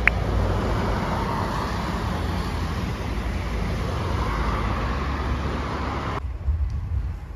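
Road traffic passing on a street, with cars and a motorcycle making a steady rush of engine and tyre noise over a low rumble. A brief high chirp sounds right at the start. About six seconds in the higher hiss cuts off abruptly, leaving only the low rumble.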